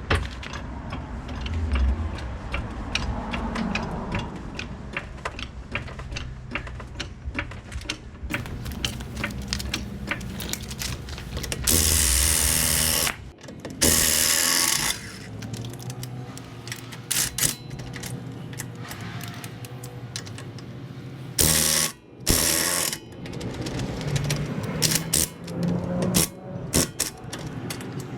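Hand ratchet wrench clicking in quick runs as bolts on a car's wheel and brake assembly are worked, broken by three loud noisy bursts about a second long, around the middle and near three quarters of the way in.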